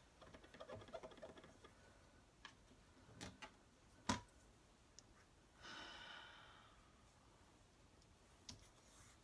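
Near silence broken by a few light clicks and taps from stamping tools being handled on a craft mat, with one sharper click about four seconds in and a soft breath around six seconds.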